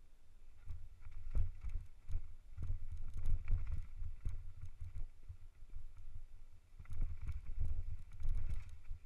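Mountain bike clattering and rattling as it rolls over wooden ladder bridges and rough dirt trail: irregular knocks of the tyres and frame over a low rumble, busiest about a second in, from two and a half to four and a half seconds in, and again from about seven seconds in.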